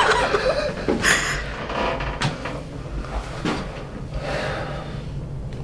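A few short knocks and rustles during a chiropractic adjustment of the neck and shoulder: a burst about a second in, then sharp clicks about two and three and a half seconds in.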